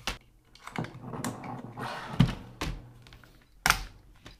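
A pin punch, worked with a hammer, driving the handguard retaining pin out of a Wolf A1 (Type 91) piston AR-15 upper: a few sharp knocks at uneven intervals, the loudest a little past halfway and near the end, with handling rattle between.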